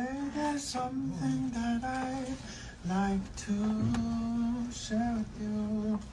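A solo voice sings a slow, soft melody in held notes, without accompaniment.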